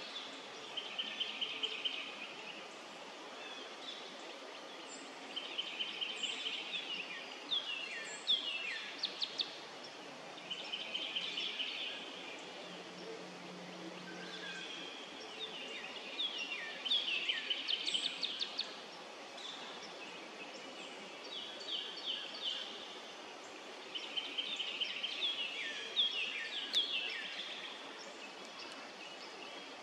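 Songbirds singing: a short trill that recurs every few seconds, with series of quick down-slurred notes between trills.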